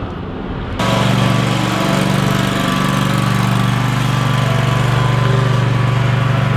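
Engine running steadily at an even speed, cutting in abruptly about a second in.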